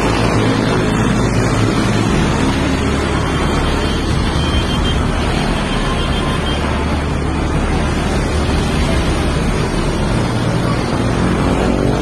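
Heavy road traffic of motorcycles and cars, many engines running together in a loud, steady din.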